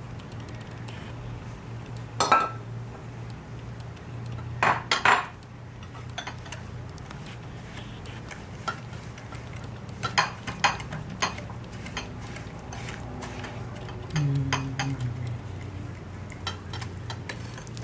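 Wire whisk clinking and scraping against a glass mixing bowl while stirring butter into seasoned stuffing crumbs, in scattered clinks and taps, with a steady low hum underneath.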